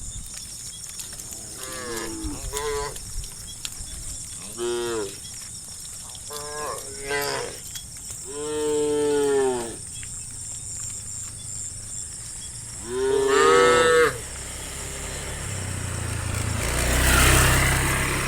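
Cows mooing, about six separate calls of different lengths that bend up and down in pitch, the longest lasting about a second and a half. A low rumbling noise swells near the end.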